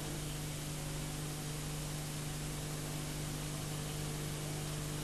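Steady low electrical hum with hiss, unchanging throughout.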